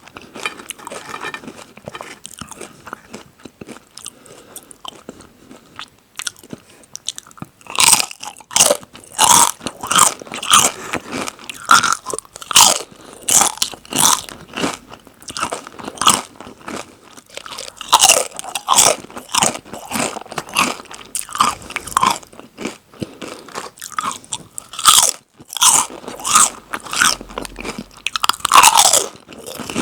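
Crunchy chips bitten and chewed close to the microphone. The first several seconds hold quieter chewing, then loud, sharp crunches come in quick runs.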